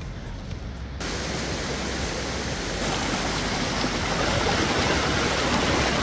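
Steady rush of a fast mountain stream or waterfall. It cuts in abruptly about a second in and gets louder a couple of seconds later.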